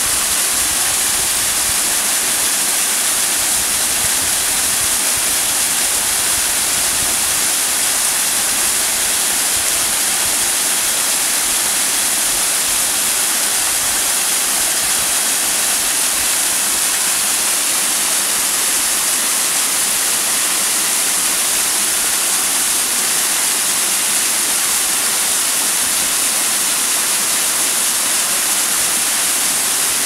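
Small waterfall cascading down a steep rock face: a steady, unbroken rush of water, mostly hiss with little low rumble.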